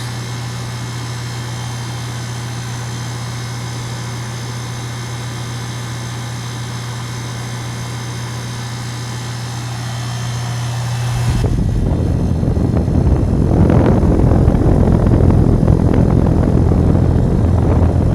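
Two-ton Goodman heat pump outdoor unit running steadily in cool mode, a steady low hum from the compressor and condenser fan. About 11 seconds in, a loud, gusty rumble of air buffeting the microphone comes in over the hum.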